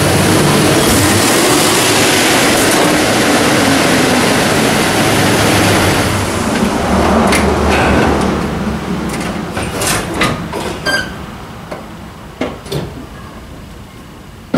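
Ford Ranger pickup engine running as the truck is driven up onto ramps, dying away after about eight seconds. A string of sharp clicks and knocks follows, with a loud knock right at the end.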